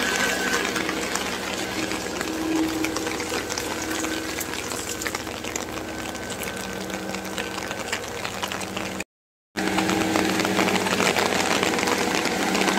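Rain falling steadily, with a low steady mechanical hum beneath it. The sound cuts out for about half a second some nine seconds in.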